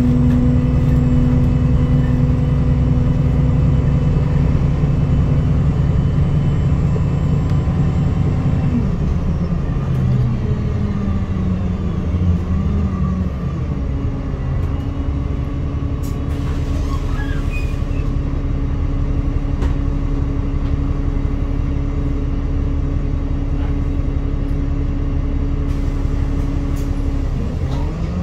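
Alexander Dennis Enviro200 MMC single-deck bus heard from inside the saloon on the move: a steady engine and drivetrain hum over road noise. The hum drops and wavers about nine seconds in as the bus eases off, settles steady again, then falls and begins to rise near the end as the bus pulls away again.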